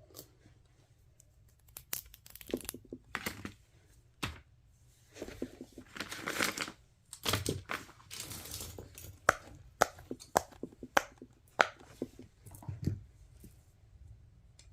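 Small objects handled close to the microphone: irregular crinkling, rustling and sharp clicks.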